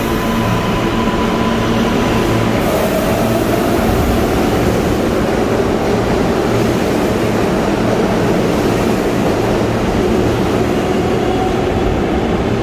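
MTA R143 subway train running on the track: steady ride noise, with a faint rising whine about three seconds in.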